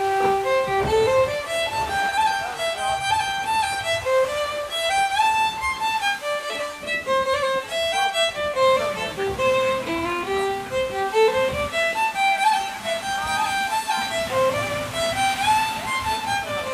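Fiddle music on the soundtrack: a quick, lively tune with fast runs of notes. A low steady drone joins about halfway through.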